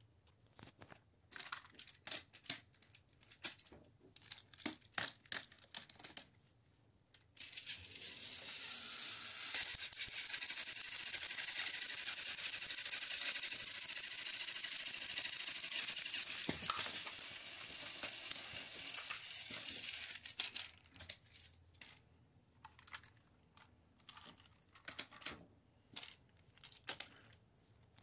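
Battery-powered toy train motors running with a steady whirr of their plastic gears for about thirteen seconds as two engines push against each other nose to nose, starting and cutting off abruptly. Before and after, sharp plastic clicks and rattles of the toy engines being handled and switched on the track.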